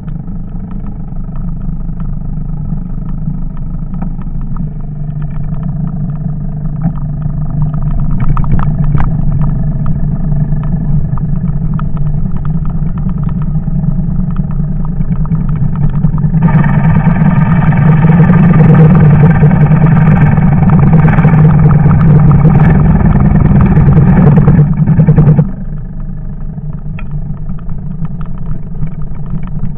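Engine of demonstrated farm equipment running steadily. About halfway through it gets louder and harsher for around nine seconds, then drops back abruptly to its earlier level.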